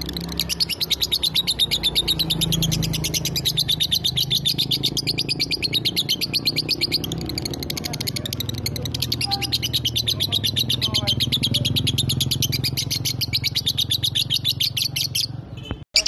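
A lovebird chattering in a long unbroken run of rapid, high chirps, many to the second, which stops abruptly near the end. A low steady background rumble lies underneath.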